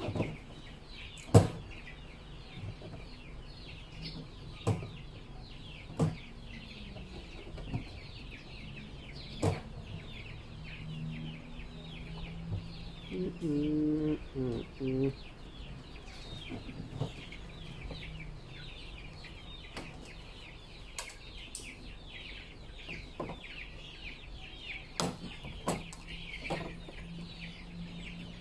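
Chickens clucking and cheeping continuously, with a louder, lower call about halfway through. Scattered sharp clicks and knocks come from the hinged lid of a blue plastic drum being handled.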